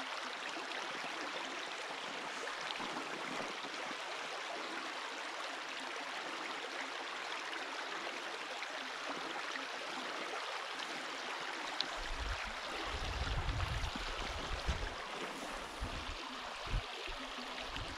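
Small peaty mountain stream trickling and gurgling steadily. In the last few seconds a low rumble and a few short knocks come in on the microphone.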